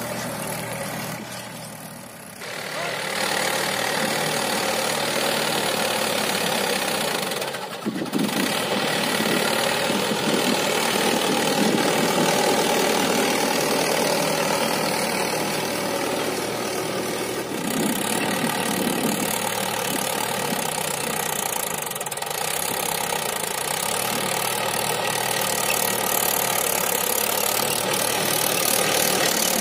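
Mahindra 575 DI tractor's four-cylinder diesel engine running steadily as it pulls a tine cultivator through dry soil. The sound dips about two seconds in and breaks off for a moment near eight seconds.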